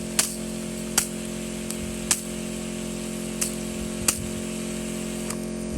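Softwash pump running with a steady hum while the spray line spits irregularly, about five sharp pops, as trapped air purges from the line before it is fully primed.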